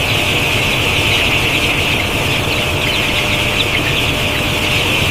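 A large crowd of chicks peeping together in a dense, continuous chorus, over a steady low machine hum.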